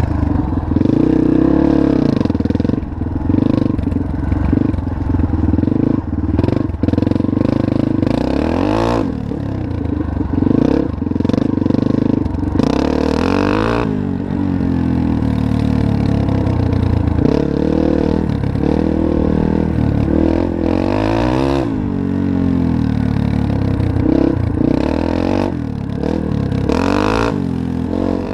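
2005 Yamaha TT-R230's single-cylinder four-stroke engine running under way through an exhaust with its baffle removed, its revs rising and falling again and again as the rider works the throttle, with a few short bursts of noise over it.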